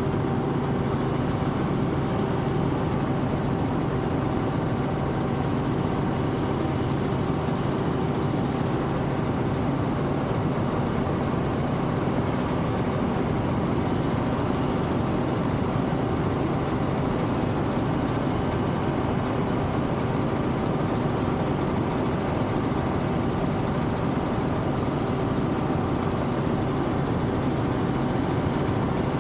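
Helicopter in flight heard from inside the cabin: a steady drone of engine and rotor with a few constant hum tones, unchanging throughout.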